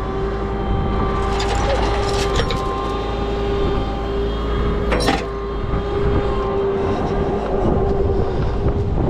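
Tow truck running with a steady whine under a low wind rumble on the microphone, and a few metallic clanks of tie-down chains being handled, around two seconds in and again near five seconds.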